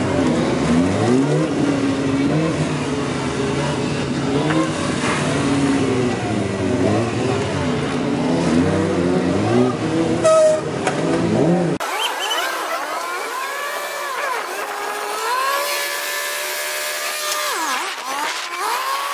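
Honda CBR600F4i's inline-four engine revving up and down over and over as the bike is worked through tight turns and short bursts of throttle. About twelve seconds in the sound cuts to a thinner recording, without the low end, of an engine still rising and falling in pitch.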